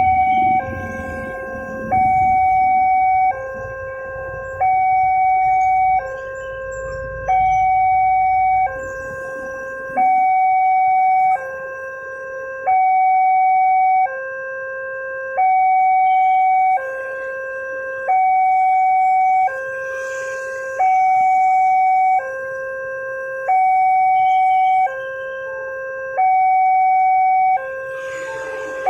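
Railway level-crossing warning alarm sounding a steady electronic two-tone high-low signal, switching about every second and a half, with the higher tone louder: the warning that a train is approaching and the barriers are down. Near the end the noise of the approaching train begins to rise under it.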